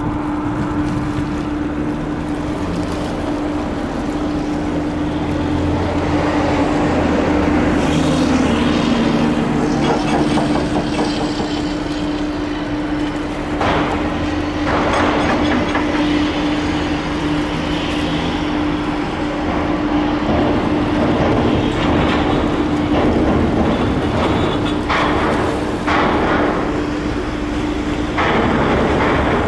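Steady heavy machinery hum holding one pitch, over a low engine drone and a rushing background, growing a little louder after about six seconds, with a few short knocks in the second half.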